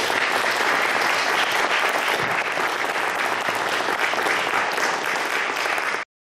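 Audience applauding, many hands clapping at once, cut off abruptly about six seconds in.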